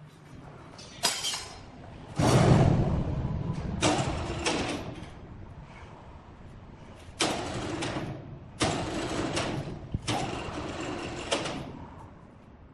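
Sawmill machinery working wood: a run of about six loud noisy bursts, each one to two seconds long and starting sharply, the loudest about two seconds in.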